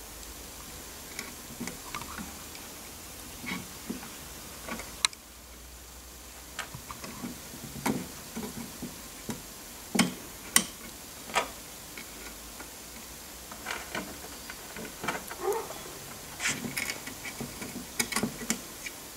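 Irregular light clicks and taps of small steel parts being handled: a thrust bearing and its washers fitted onto the end of a lead screw at the actuator's end plate.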